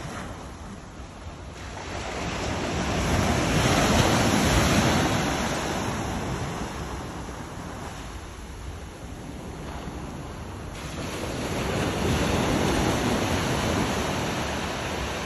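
North Sea surf: small waves breaking and washing up a sandy beach, the noise swelling twice as waves come in.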